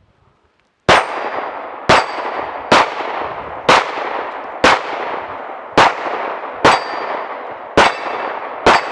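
Rapid gunfire on a timed shooting stage: nine sharp shots at roughly one a second, starting about a second in, each trailing off in a ringing echo.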